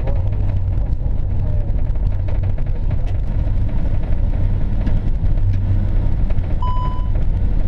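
Steady low rumble heard from inside an Airbus A380 rolling down the runway: engine and wheel noise through the airframe. A short high beep sounds near the end.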